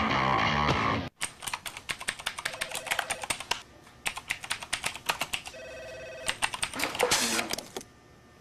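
Rapid typing on a laptop keyboard starts about a second in, after a rock jingle cuts off. Two short electronic beeps of steady tone, each under a second long, come a few seconds apart.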